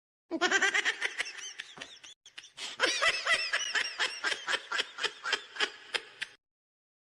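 Laughing sound effect: a high-pitched voice laughing in quick pulses, about four a second, for about six seconds, then cutting off abruptly.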